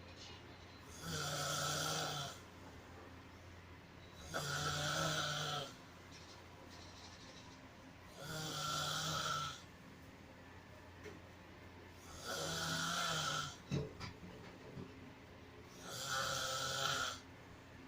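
Loud snoring: five deep snores, about every four seconds, each lasting a little over a second, with a few short clicks just after the fourth.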